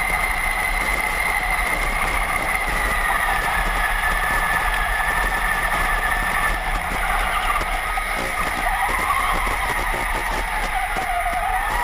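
Traxxas Summit RC truck's electric motor and gear drivetrain whining steadily, the pitch drifting slowly up and down with its speed and dipping and rising again near the end.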